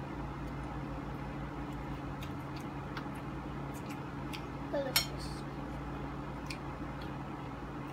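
A few light clinks of a metal fork against a plate during a meal, over a steady low hum. The loudest clink comes about five seconds in, just after a short vocal sound from a child.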